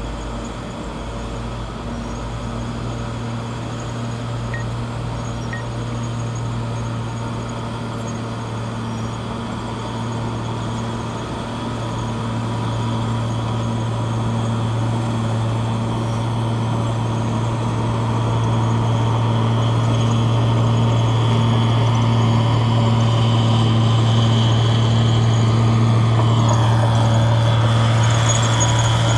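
Bulldozer's diesel engine running steadily, growing gradually louder. A brief falling whine comes near the end.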